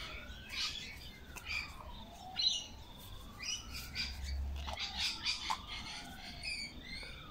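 Birds chirping in the background over a distant siren wailing in slow rising and falling sweeps. Light clicks come from plastic carburetor parts being handled.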